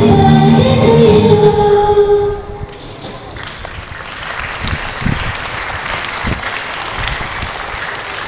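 A group of students singing a birthday song, ending about two and a half seconds in, followed by an audience applauding.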